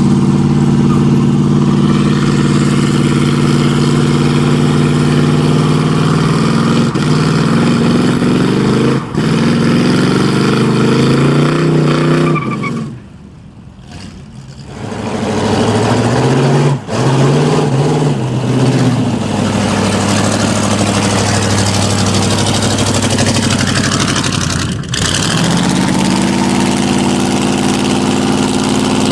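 V8 muscle car engine held at high revs during a burnout, with the noise of spinning tyres. About halfway through the revs drop away for a couple of seconds, then climb back in a few quick blips before holding high again.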